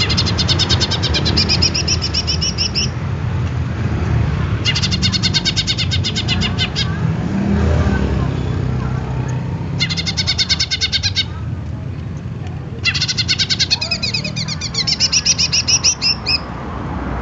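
Caged green leafbird (cucak ijo) singing in four bouts of rapid, high repeated notes with short pauses between them, over a steady low rumble.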